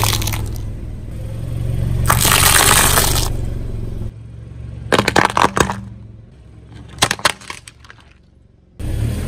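A car tyre slowly crushing hollow, dried round fruits on concrete: their brittle shells crackle and crunch under it for the first few seconds, followed later by a few sharp, separate cracks.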